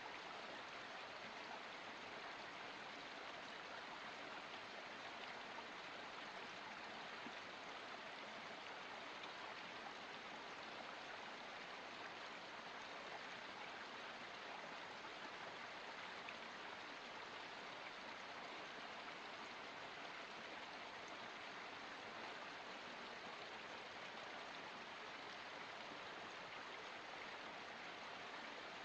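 Water of a small forest spring or stream flowing steadily, a faint, even wash of running water with no changes.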